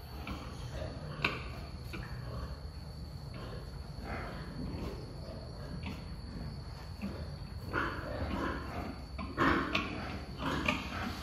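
Wild boar sow grunting in short noisy bursts while farrowing, the grunts coming closer together and louder in the last few seconds, over a steady low background rumble.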